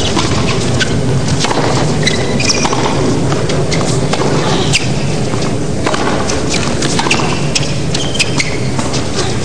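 A tennis rally on a hard court: several sharp racket strikes on the ball, and short high squeaks of tennis shoes braking and turning on the court surface.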